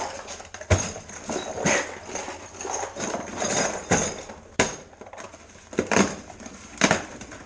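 Hard objects being handled and set down: a series of sharp knocks and clanks about a second apart, with rustling in between.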